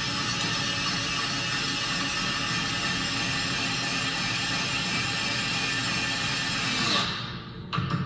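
Cordless drill/driver running steadily as it drives one of the long screws that join the deadbolt's interior and exterior halves; it stops about seven seconds in. A short knock follows near the end.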